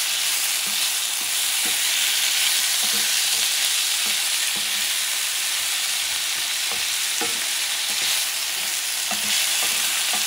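Beef cubes with chayote, onions and bell peppers sizzling steadily in oil in a cast iron skillet. A wooden spoon stirs them, scraping and knocking against the pan now and then.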